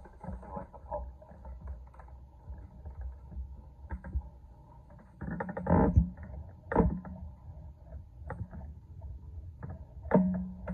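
Rubbing, clicks and knocks from a hand-held wrist and finger training tool being worked, with louder thumps about halfway through, just before seven seconds, and near the end.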